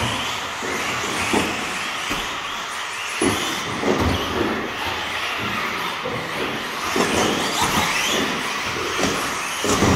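Electric 1/10-scale RC buggies running on a carpet track: brushless motors whining up and down in pitch as they accelerate and brake, over a steady hiss of tyres on carpet, with a few short thumps.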